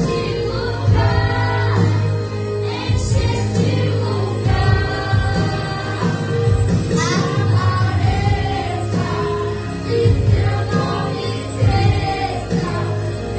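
A young girl singing a Portuguese Christian worship song into a microphone over amplified instrumental backing music, her voice coming through the PA.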